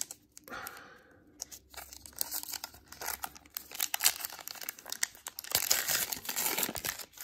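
Plastic wrapper of a Topps Gypsy Queen baseball card pack being torn and crinkled in the hands, a crackling rustle that grows louder about five and a half seconds in.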